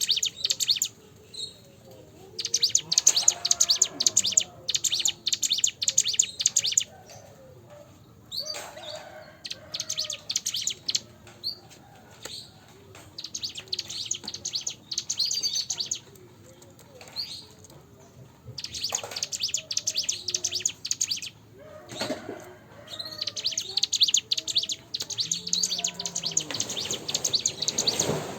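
Cigun bird singing: repeated bursts of rapid, high chirping lasting a few seconds each, with short pauses between them, about six phrases in all.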